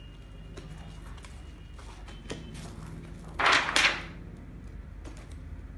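A heavy wallpaper sample page being turned in a sample book: a loud, brief paper swish in two quick pulses about three and a half seconds in, with faint handling taps before it.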